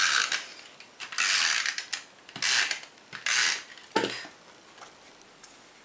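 Tape-runner adhesive dispenser drawn across the back of a card panel in four short ratcheting strokes, then a single sharp click about four seconds in.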